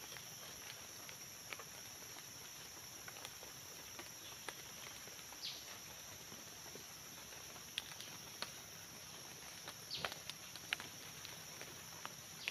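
Scattered sharp knocks and snaps of a machete and small sticks being worked on the leaf-littered ground while a snare is set, busiest near the end, over a steady high-pitched insect drone.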